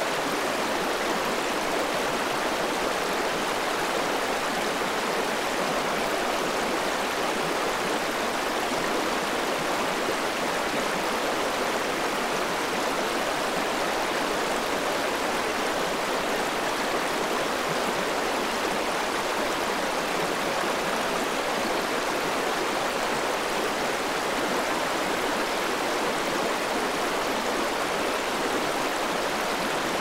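Mountain river rushing through white-water rapids over boulders: a steady, unbroken rush of water.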